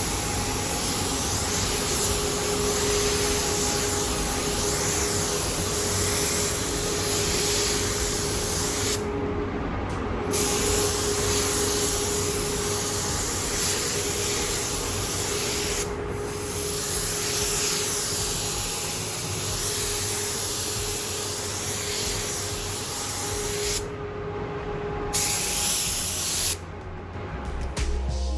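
Compressed-air paint spray gun hissing in long spray passes, cutting out briefly four times as the trigger is let off, with a steady hum underneath.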